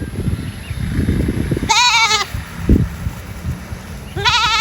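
A goat bleating twice, two short high quavering calls about two and a half seconds apart, over a low rumbling background.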